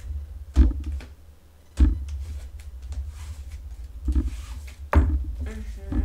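Tarot cards being shuffled and handled on the desk: a rustle of cards, four dull knocks, and a steady low rumble of handling noise.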